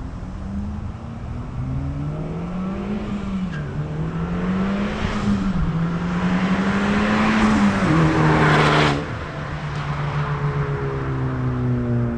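2020 Honda Civic Type R's turbocharged 2.0-litre four-cylinder with muffler and resonator deleted, accelerating through the gears: the exhaust note climbs and drops back at each upshift, gets loudest, then falls away suddenly about nine seconds in and settles to a steady cruise.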